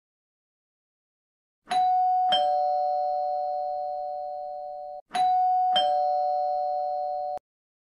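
Two-note doorbell chime, a higher note followed by a lower one, sounding twice; each chime rings on steadily and is cut off abruptly.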